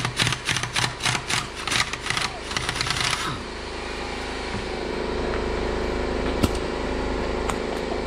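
Pneumatic impact wrench hammering in quick rattling pulses as it runs a nut tight on a tractor's rear wheel rim, stopping about three seconds in. A steady motor hum carries on underneath, with a single sharp click near the end.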